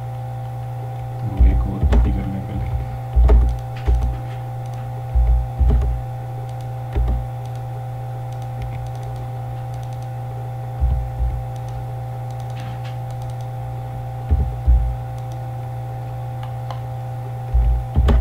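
Computer keyboard typing and mouse clicks, heard as short clusters of dull thumps a few seconds apart, over a steady electrical hum.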